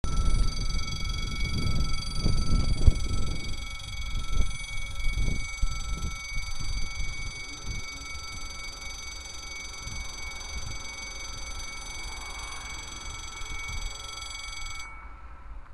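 Level-crossing warning bell ringing steadily as the barrier arm lowers, then cutting off suddenly near the end once the barrier is down. A low, gusty rumble of wind on the microphone comes and goes over the first several seconds.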